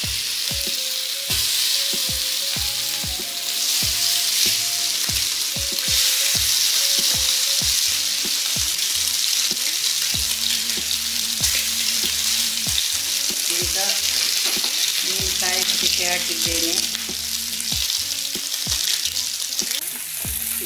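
Masala-coated fish pieces sizzling in shallow hot oil on a non-stick tawa as more pieces are laid in. A steady, dense frying hiss.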